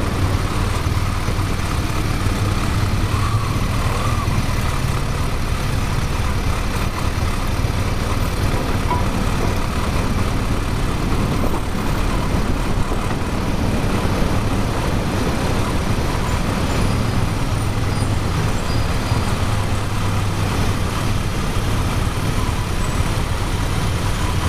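Motorcycle engine running steadily at low speed, mixed with constant wind and road rumble.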